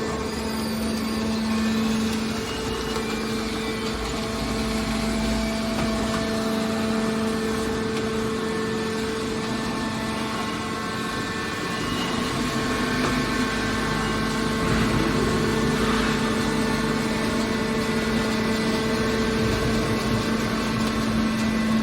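Aluminium can baler's power unit running with a steady, even hum.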